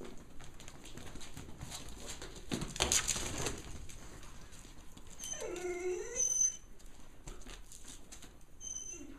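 A drawn-out, wavering animal cry lasting just over a second, about five seconds in, ending abruptly. Before it, about three seconds in, comes a brief loud rustle.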